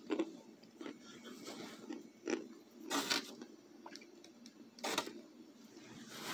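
A few short crinkling, crunching noises as a paper box of packed cornstarch chunks in aluminium foil is handled.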